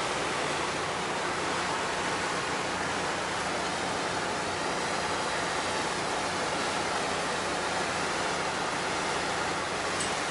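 Steady rushing of a ferry's propeller wash churning behind the stern, with a low, even engine hum underneath as the ship gets under way.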